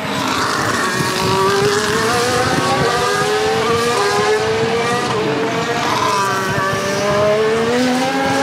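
Formula 1 cars' 1.6-litre turbocharged V6 hybrid engines, more than one at a time, running hard through the corners. The engine notes climb, drop back about halfway through, then climb again as the cars accelerate out.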